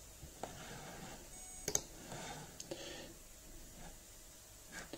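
Computer mouse clicking, with a sharp double click a little under two seconds in and a few softer clicks, over faint room noise.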